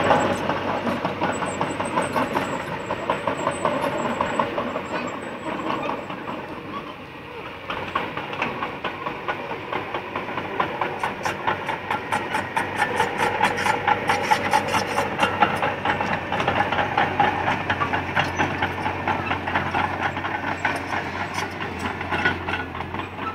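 Mitsubishi BD2G mini crawler bulldozer moving over dirt: its diesel engine running under a dense, rapid clatter from the steel tracks.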